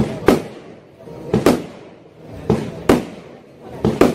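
A 100-shot fireworks cake (salute battery) firing: sharp bangs come roughly once a second, often two in quick succession, each followed by a brief ringing tail.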